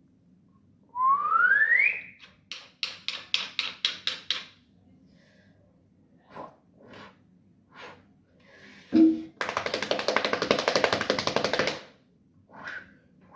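A string of cartoon-style sound effects: a quick rising whistle-like glide, then a fast run of about eight sharp knocks, a few scattered taps and a thump, and a rapid rattling buzz lasting about two and a half seconds near the end.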